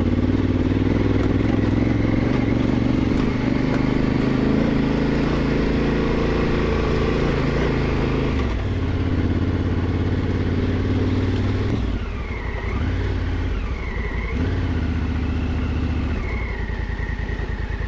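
Honda Africa Twin's parallel-twin engine pulling the bike up a steep dirt climb under steady throttle. The engine note shifts briefly about halfway through, then runs quieter and lower for the last few seconds as the bike eases off.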